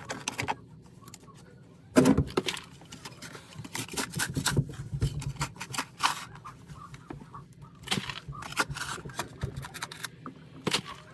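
A short-handled digging tool chopping and scraping into packed dirt in irregular strokes, the loudest strike about two seconds in.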